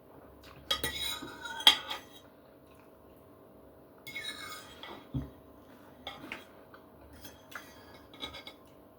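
Knife and fork scraping and clinking on a plate while the steak is cut, in three short bouts with a sharp clink about two seconds in.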